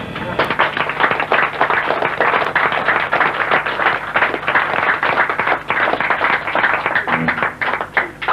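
Audience applauding after rock music on bass guitar stops, dense clapping that thins out to a few last claps near the end, over a steady low hum.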